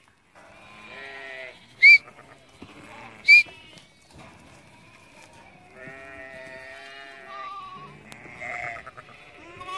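Merino-type ewes and their young lambs bleating again and again, some calls drawn out for a second or more. Two short, sharp high whistles, about a second and a half apart, cut through early on.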